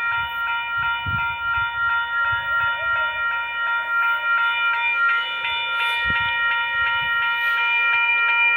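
Western-Cullen-Hayes electronic railroad crossing bell ringing steadily with rapid repeated strikes, heard played back through a screen's speakers.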